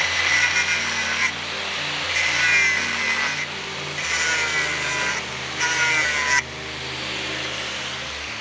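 Steel being worked with an abrasive tool in four strokes, each a harsh scraping hiss with a thin squeal, over background music.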